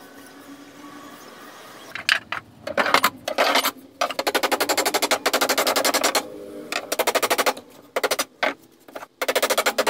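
A power tool run in bursts on a nail-studded pallet board, making a fast, even rattle of roughly a dozen strokes a second that starts and stops several times; the first two seconds are quieter.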